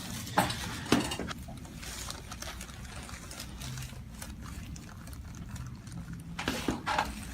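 Sharp clicks and knocks during a chiropractic adjustment on a treatment table: two near the start about half a second apart, and two more near the end, over a low steady hum.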